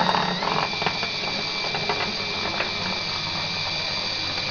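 Electric router with a router bit running steadily as it cuts through the metal wing skin, a high whine that steps up slightly in pitch about half a second in, with light scattered clicks of the bit chattering in the cut.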